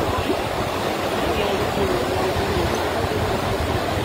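Steady rush of a flooded river's water, with faint distant voices underneath.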